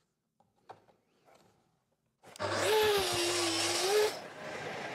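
Plunge track saw with a fine-finish blade starting about two seconds in and cutting along its guide rail through a solid beech slab, its motor note sagging slightly under load. Near the end it drops to a quieter steady hum.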